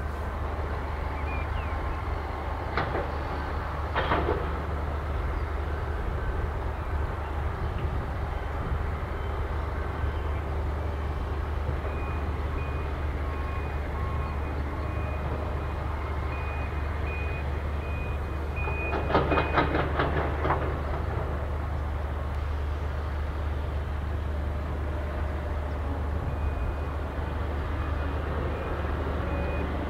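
Heavy earthmoving machinery heard at a distance: excavators and dump trucks running with a steady low rumble. Metal clanks a couple of times early on, and there is a quick clattering run of clanks about two-thirds of the way in. A reversing alarm beeps on and off.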